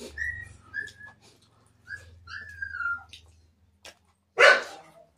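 A dog whining off-camera in short high whimpers, one drawn out and falling, then giving one loud sharp bark near the end.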